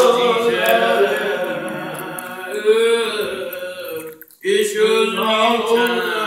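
A deacon's voice chanting a prayer in long, drawn-out sung phrases, broken by one short breath about four seconds in.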